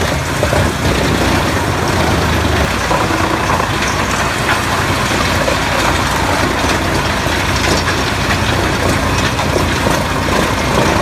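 Wood chipper running at full power and chipping wood: a loud, steady engine and cutter noise with a dense crackling of splintering wood over it.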